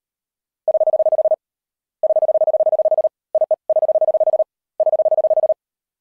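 Very fast Morse code (CW): a single steady tone keyed in rapid dots and dashes, sent in about five short runs with brief pauses between them.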